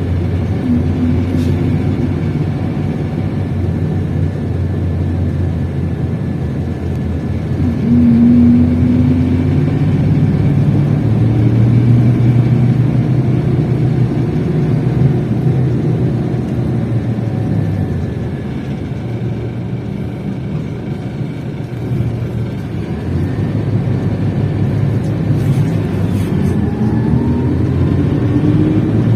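Scania K380 coach's diesel engine running under way, its pitch rising as it revs up around a second in, again around eight seconds in, and once more near the end.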